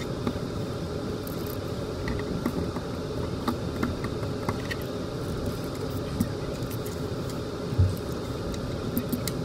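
A steady low hum, with scattered faint clicks and rustles as the plastic toy is handled.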